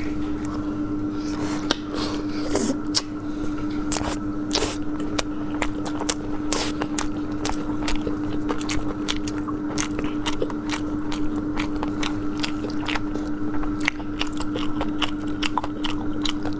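Close-up eating sounds from two people eating raw oysters and sushi: wet chewing, lip smacks and frequent sharp mouth clicks at an irregular pace, over a steady low hum.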